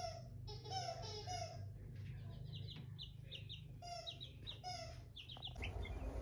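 Five-week-old chicks peeping: a steady string of short, falling peeps, a few per second, some higher-pitched than others. The peeping stops near the end.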